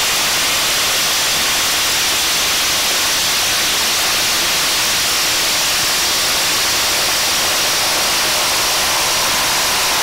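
Two cordless impact drivers, a Ridgid Octane 18-volt brushless and a Hitachi/Metabo triple hammer, hammering side by side as they drive half-inch lag bolts into a 4x4 with no pilot holes. A loud, steady, dense noise with no single blows standing out.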